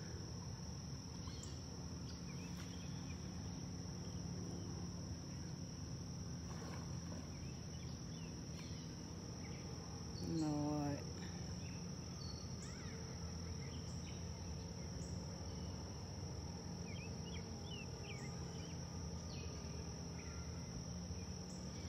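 Faint steady high-pitched drone of insects. About halfway through, a person's voice sounds briefly.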